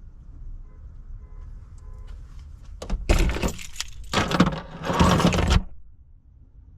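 Metallic clattering and jangling in three bursts about three seconds in, like hardware or tools being handled.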